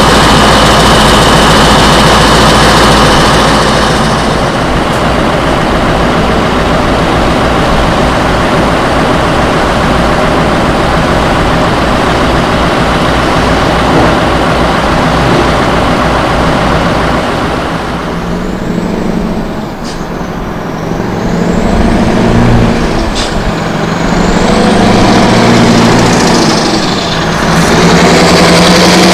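Scania R 500 truck's V8 diesel with an open (straight-piped) exhaust, running loud and steady. In the last ten seconds the engine note falls and rises in steps as the truck pulls away loaded.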